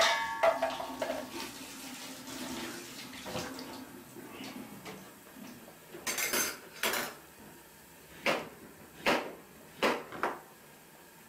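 Kitchen pots and utensils clattering. A metal clank rings on briefly at the start, then about six sharp knocks come spread over the last five seconds.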